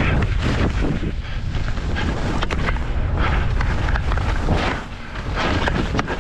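Wind buffeting the microphone of a moving skier, a steady low rumble, with skis swishing through snow in a series of quick turns about every half second to a second.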